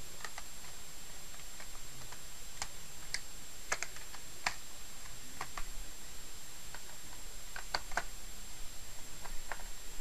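Irregular light plastic clicks and taps as a laptop's RAM compartment cover plate is pressed and fitted back onto the plastic underside of the case, about a dozen clicks spread unevenly.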